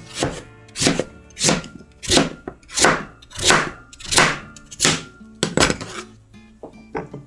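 A large kitchen knife slicing through raw pumpkin and striking a plastic cutting board, one crisp cut about every two-thirds of a second, about nine in a row. The cuts stop about six seconds in. Background music plays throughout.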